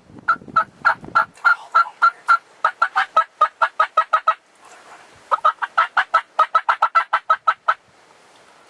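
Turkey calls: two long runs of rapid, evenly spaced sharp notes, about five a second, with a pause of about a second between them.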